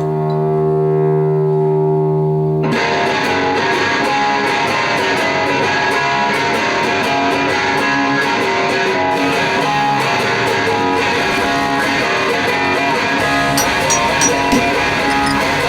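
Intro music: a held droning chord that changes sharply about two and a half seconds in to rock music with distorted electric guitar and a steady beat.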